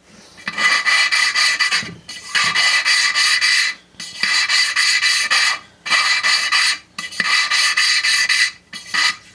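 A valve being hand-lapped into its seat in a 1958 Briggs & Stratton Model 6B aluminum block: a gritty rasping of lapping compound between valve face and seat as the suction-cup lapping stick is twisted rapidly back and forth. It comes in about six spells of a second or so, with brief pauses, as the valve is ground in to seal.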